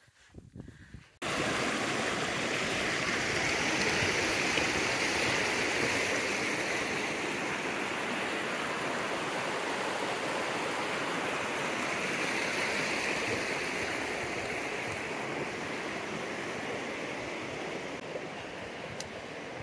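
Small rocky mountain stream rushing and splashing over a cascade of stone slabs: a steady rush of water that starts abruptly about a second in.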